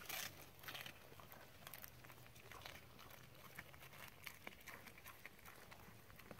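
A greyhound chewing a piece of pizza: faint crunching and clicks of its teeth, loudest right at the start.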